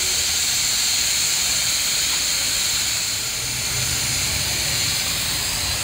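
Steady, loud hiss of pressurised gas escaping from a car's CNG cylinder as the oil that collects inside it is blown out.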